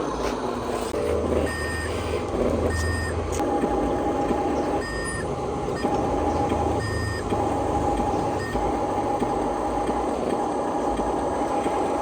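Radio-controlled trucks running, their sound modules giving short reversing beeps every second or two over the whine of the electric drive motors; a steady high hum joins about three and a half seconds in.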